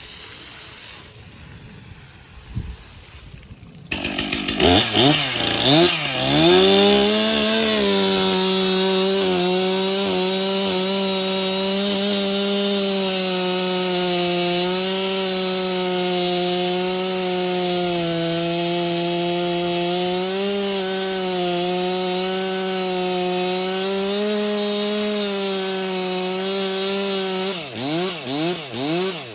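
Gasoline chainsaw cutting into a red oak log, skimming a knot off its side: it comes in loud about four seconds in, climbs to full revs and holds a steady high pitch with slight dips as it bites. Near the end the revs rise and fall rapidly over and over.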